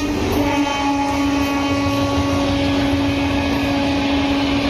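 Train horn sounding one long, unbroken blast, its pitch sagging very slightly, over the low rumble of a train on the move.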